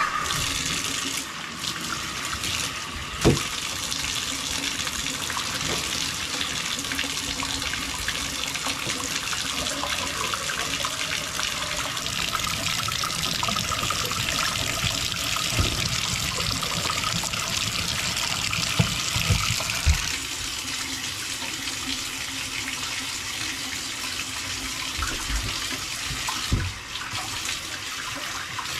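Bathtub spout running, water pouring and splashing into the tub, with a few sharp knocks over it. The flow drops a little in level about two-thirds of the way through.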